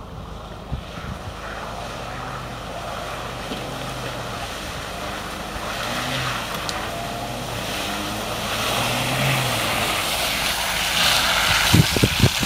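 An SUV's engine running steadily and growing louder as it drives closer through mud, with the hiss and slosh of tyres churning through muddy puddles. A few sharp low thumps come near the end.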